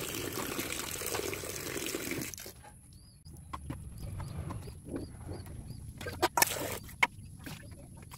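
Tap water running into a steel bowl as potatoes are rinsed, stopping suddenly about two and a half seconds in. Then quieter splashing as hands rub the vegetables in the water, and a few sharp clinks of steel dishes.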